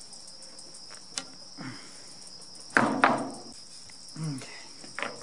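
Steady high insect trilling throughout, with a few sharp knocks and clatters from handling a metal fuel rail and rag, the loudest pair about three seconds in.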